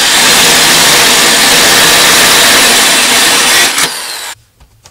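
Corded electric drill running at speed with an eighth-inch bit, boring a hole through a car's side skirt. It cuts off a little under four seconds in and winds down.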